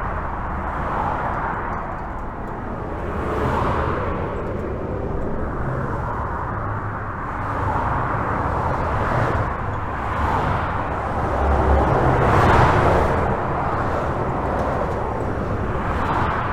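Steady highway traffic heard from under a bridge: a continuous rush of tyres and engines with a low rumble, swelling and fading as vehicles pass every second or few seconds.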